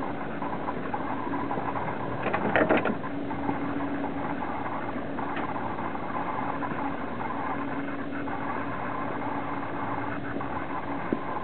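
The 1978 Cadillac Eldorado's V8 engine idling steadily, with a brief cluster of clatter about two and a half seconds in.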